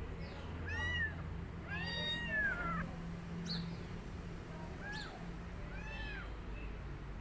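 Cat meowing: a string of about five short, high-pitched meows, the longest about two seconds in.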